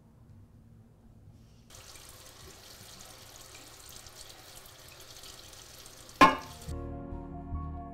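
Kitchen tap running into a sink while dishes are washed, starting about two seconds in. A sharp clatter comes near the end, just as the water stops, and soft music begins right after.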